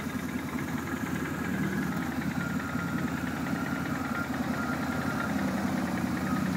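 Quad ATV engine running steadily at low revs, slowly growing louder.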